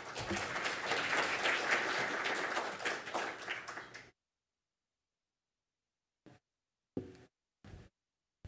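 Audience applauding for about four seconds, then stopping; a few brief faint knocks follow.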